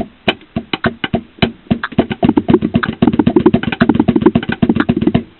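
Drums played by hand with sticks: a few separate hits at first, then from about two seconds in a fast, steady run of strokes moving around the drums, which stops just before the end.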